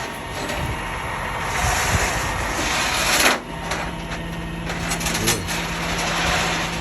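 A vehicle's motor running with rushes of hissing noise and a few clicks; a steady low hum sets in about halfway through.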